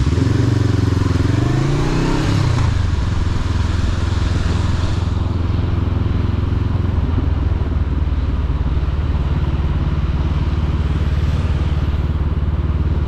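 Motorcycle engine pulling hard, its pitch rising for about two seconds and then dropping, before settling into a steady cruising note. A rushing hiss over it fades about five seconds in.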